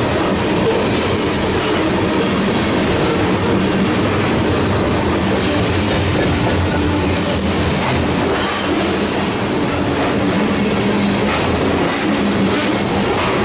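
Loaded covered hopper cars of a freight train rolling past at speed: a steady, loud noise of steel wheels on rail with a clickety-clack of the passing trucks.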